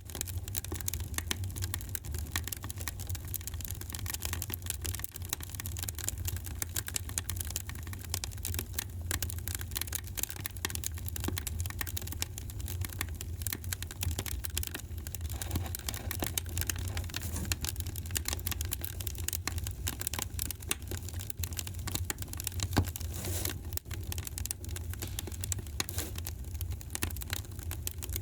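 Wood fire crackling in a fireplace: a dense, constant patter of small pops and snaps over a steady low rumble of flame, with one louder pop about three-quarters of the way through.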